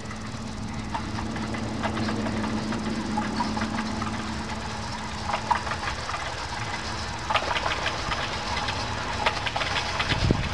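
15-inch gauge steam locomotive approaching along the line, its chuffing and the clicking of its wheels growing louder over the second half.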